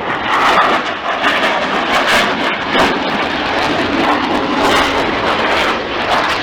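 Loud, steady jet noise from a Panavia Tornado's twin RB199 turbofan engines in flight, with a rough, crackling edge.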